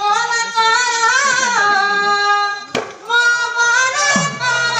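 A high voice singing long held notes with vibrato, amplified through a public-address system. The singing breaks off briefly a little past halfway at a sharp knock, then resumes, and a steady low hum sets in near the end.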